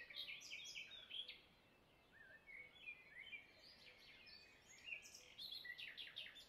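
Faint chirping of small birds: many short, high notes with quick rises and falls, over a soft hiss of outdoor background noise. The chirping pauses for about a second a little over one second in, then picks up again and is busiest near the end.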